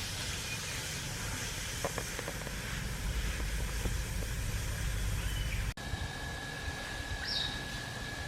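Outdoor ambience: a low rumble with hiss, like wind on the microphone. It cuts off abruptly about two-thirds of the way in, and a steady high whine follows, with one short chirp.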